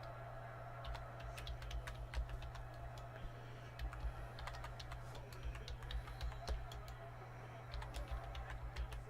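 Computer keyboard being typed on in quick, irregular clicks, over a steady low hum.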